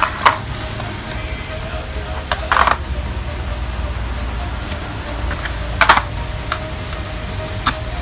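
Phillips screwdriver tightening the bolts on the metal mounting plate of a pedestal fan's plastic base: several short scrapes and clicks of the tip on the screw heads, over background music.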